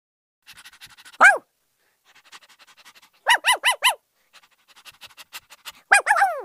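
Puppy yipping in high, short cries: one about a second in, a quick run of four in the middle, and two falling yips near the end, with quick panting between them.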